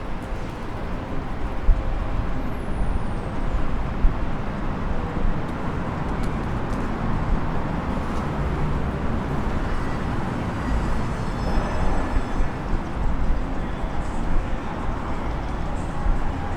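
City street traffic: cars and buses passing with a steady low rumble, over the general noise of a busy street.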